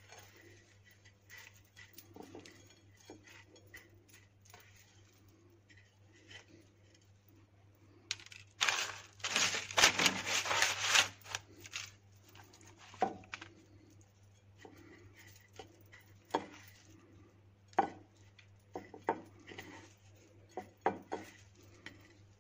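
Hands pressing and rubbing pieces of raw chicken into seasoned breadcrumbs on a ceramic plate: soft gritty rustling, a louder stretch of crackly scraping a little before the middle, and several sharp taps against the plate in the second half. A steady low hum runs underneath.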